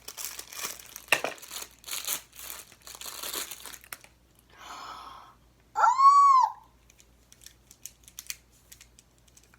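Plastic toy packaging crinkling and tearing as fidget toys are unwrapped, with rapid crackles for the first few seconds. About six seconds in there is a brief, loud, high-pitched squeal that rises and falls, followed by a few faint clicks of handling.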